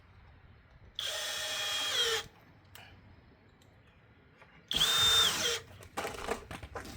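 Power drill driving screws into wood: two short runs of the motor, about a second each, the whine dropping as the trigger is released at the end of each. A few light knocks follow near the end.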